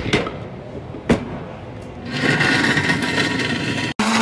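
Two knocks at the commercial countertop blender, then about two seconds in the blender starts and runs loud and steady, crushing ice with milk and cream base for a frappuccino.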